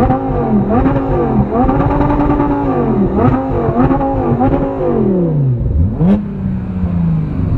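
Car engine revved hard in repeated quick blips, the pitch climbing and falling about five times in a row. About six seconds in there is a short sharp burst as the revs drop, and then it settles to a steady idle.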